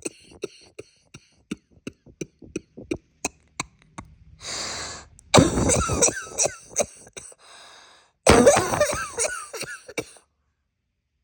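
A woman with a bad cold coughing close to the microphone. A string of short, sharp sounds comes first, then a deep breath in about four seconds in. Two harsh coughing fits follow, about 5 and 8 seconds in, the second stopping at about 10 seconds.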